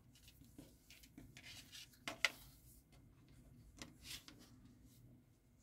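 Faint rustling with a few soft clicks and taps as a nylon NATO-style watch strap, with its metal keepers and buckle, is pulled through and fastened around a wrist. The sharpest click comes a little over two seconds in.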